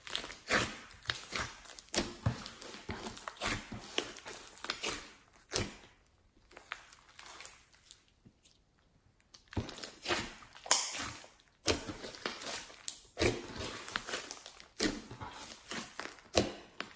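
Hands kneading, pressing and stretching glossy slime mixed with small foam beads, giving bursts of many small sticky pops and clicks, quieter for a few seconds in the middle.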